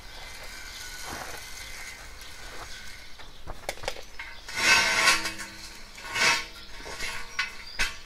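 Large rusty steel drum scraping against stone as it is shifted and turned. There are two loud scrapes, one just past halfway and another about a second and a half later, each followed by a brief low metallic ring. Before them there are only a few light taps and clicks.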